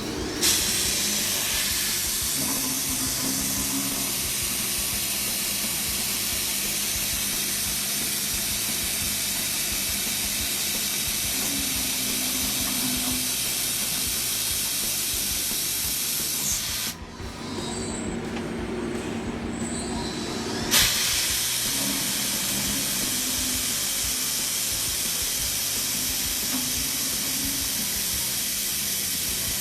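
Ocean Avenger Plus beam coping machine cutting steel with a loud steady hiss. The hiss starts sharply, cuts off about 17 seconds in, leaving a lower machine hum, and comes back sharply about four seconds later.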